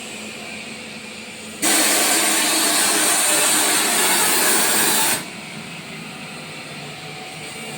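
Screw air compressor running with a steady hum, and a loud hiss of compressed air that starts abruptly about a second and a half in and cuts off suddenly some three and a half seconds later.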